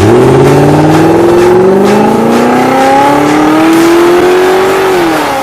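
Mustang GT's V8 engine accelerating hard, loud, its pitch climbing steadily for about five seconds before dropping near the end as the throttle comes off.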